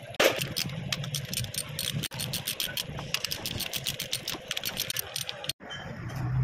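Many quick metallic clicks and scrapes of hand tools working at the oil seal and steering knuckle of a Nissan Patrol front axle, over a steady low hum.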